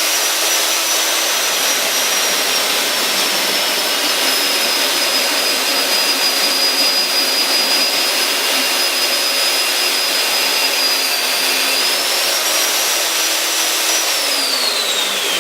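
Magnetic base drill's single-speed motor running at full speed with a steady high whine while boring a 9/16-inch hole, then winding down with a falling whine near the end as it is switched off.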